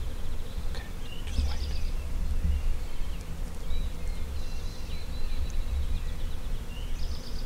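Songbirds chirping and singing over a low, uneven rumble that swells about a second in.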